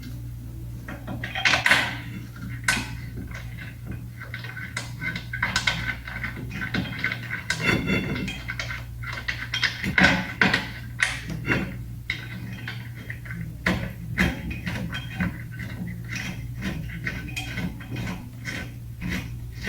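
Metal clinks, clicks and knocks from handling the rear brake caliper and fitting its bolts by hand, some with a short metallic ring, over a steady low hum.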